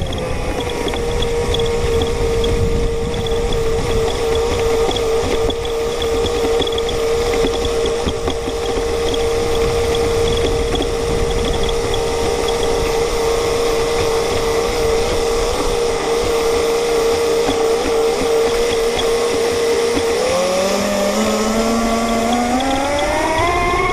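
RC model boat's motor, heard from on board, running at a steady pitch for most of the time, then climbing in pitch over the last few seconds as it speeds up, over a steady rushing noise.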